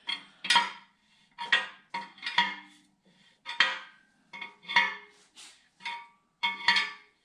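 Steel cam bearing installer tool in a 454 big-block Chevy's cam bore: about ten sharp, ringing metallic clinks, roughly one or two a second, as the tool is worked stroke by stroke to draw the number two cam bearing in. The bearing is going in tight.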